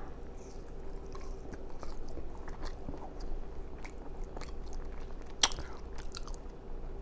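Close-up mouth sounds of someone eating a cheeseburger and fries: chewing with wet lip smacks and scattered small clicks. One sharper smack comes about five and a half seconds in.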